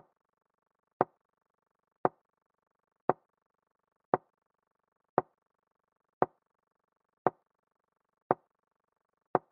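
Chess move sound effect from an animated game replay: a short, sharp knock each time a piece is played, evenly about one a second, over a faint steady hum.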